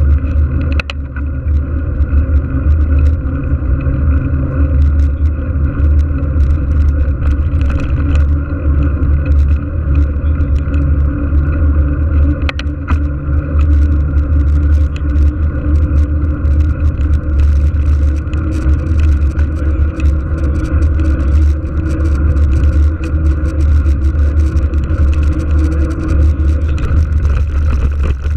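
Steady, loud wind buffeting on an action camera's microphone as a mountain bike rides along an asphalt lane, with a low rumble from the tyres on the road and a few sharp clicks from the bike.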